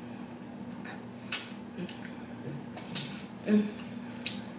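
A person eating chicken wings: a handful of short clicks and wet smacks from chewing and handling the food, the loudest about three and a half seconds in, over a steady low hum.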